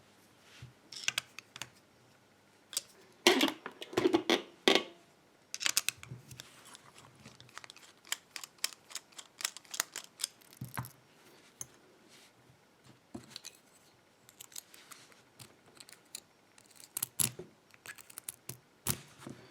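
Sharp metal clicks, taps and short rattles of a Kryptonite padlock being handled and taken apart, with a dense burst of rattling clicks about three to five seconds in and scattered clicks after.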